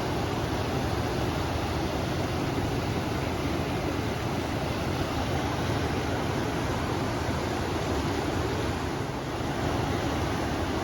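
River water rushing steadily, mixed with the sound of wind.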